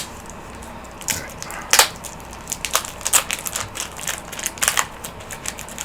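Plastic packaging crinkling and crackling in the hands as the next bundle of Pokémon cards is unwrapped, with irregular sharp snaps among the rustle.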